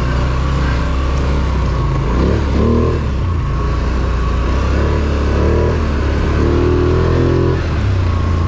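Polaris Sportsman ATV engine running steadily under way, its revs rising and falling a few times as the throttle changes.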